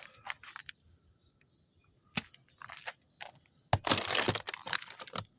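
Ice crust cracking and crunching: a few scattered sharp cracks, then a dense burst of crunching and breaking near the end.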